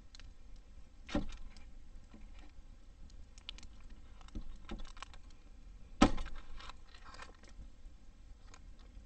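Kitchen knife cutting through a paper-wrapped block on a plastic cutting board, the blade knocking on the board. Two sharp knocks, about a second in and about six seconds in, with lighter taps and paper rustling between.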